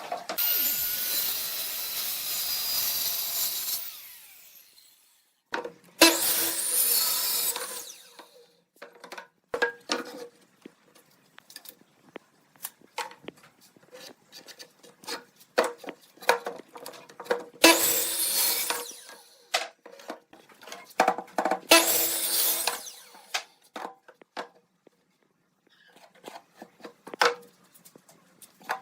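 Wood being worked with a tool in four bursts of two to four seconds each, with many short knocks and clicks of wooden pieces being handled in between.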